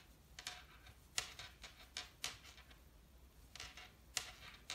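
Faint, irregular soft clicks and rustles of a metal crochet hook working yarn in single crochet, several a second at times, the sharpest about a second in and near the end.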